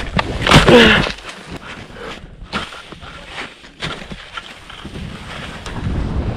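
Skis scraping and crunching on snow at the lip of a drop, with a brief yell about half a second in. Near the end a steady rush of wind on a helmet camera's microphone begins as the skier drops in.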